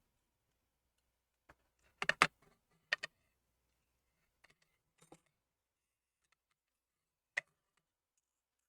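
Small hand tools on a phone under repair, with tweezers clicking and tapping: a quick cluster of clicks about two seconds in (the loudest), a couple more about a second later, and single faint ticks later on.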